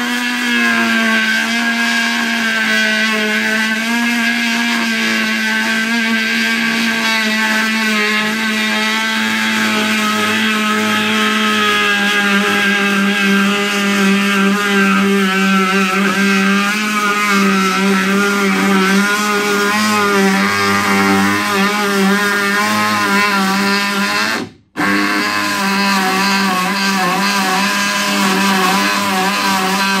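Ridgid JobMax cordless oscillating multi-tool running under load, its blade cutting a straight line through a board: a loud, steady buzz whose pitch wavers slightly as the blade is pushed along. It cuts out for a split second about three-quarters of the way through, then carries on.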